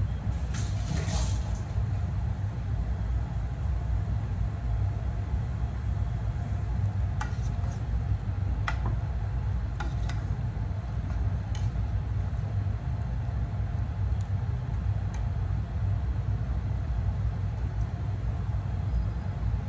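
Steady low rumble of gas stove burners, with a brief rustle near the start and a few light clinks.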